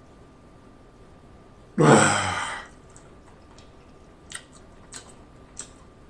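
A man with hiccups lets out one long, loud voiced exhale, falling in pitch, about two seconds in. It is followed by four faint short clicks from his mouth.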